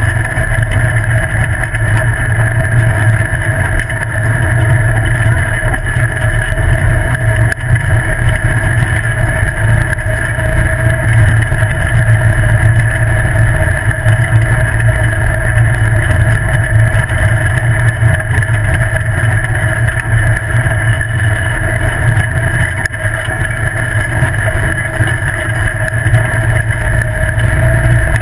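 Off-road buggy's engine running steadily at speed, with a heavy rumble from the ride and wind on the onboard microphone. The engine note holds nearly constant throughout.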